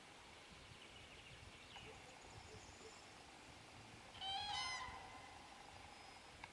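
Common crane (Grus grus) giving one short call about four seconds in.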